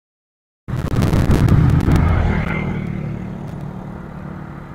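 Low rumble of a passing vehicle, cutting in abruptly with a few clicks and then fading away over a few seconds.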